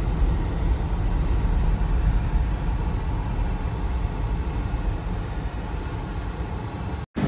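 Car driving along a road, heard from inside the cabin: a steady low rumble of engine and tyres. It cuts off abruptly near the end.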